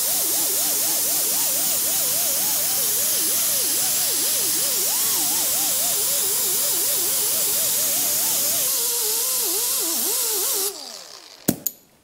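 Air die grinder with a small abrasive disc cleaning paint and debris off the cast-iron transmission housing's gasket surfaces: a steady hiss of exhaust air with a whine that wavers in pitch as the disc is pressed against the metal. It shuts off about eleven seconds in, the whine falling as it spins down, followed by a couple of sharp clicks.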